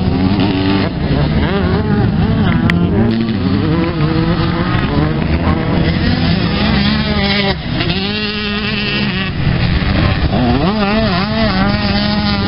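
Motocross bike engines revving hard as several bikes ride round a dirt track, the pitch climbing and dropping again and again with throttle and gear changes.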